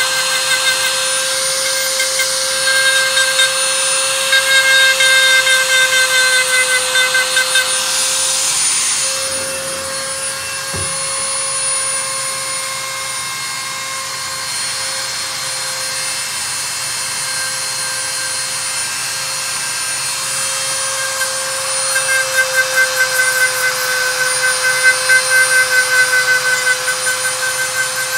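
Podiatry rotary nail drill running with a steady high motor whine while its burr grinds down thickened toenails. The grinding comes in quick strokes, heaviest in the first few seconds and again near the end, with a smoother stretch between.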